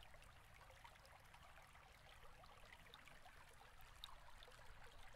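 Near silence: faint room tone with a low hum and a few soft ticks.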